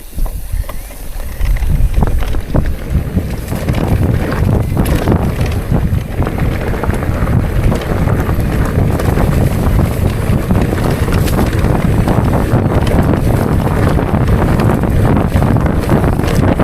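Wind buffeting the microphone while riding a bicycle, building over the first two seconds as the bike gathers speed and then holding steady, with scattered clicks and rattles from the bike.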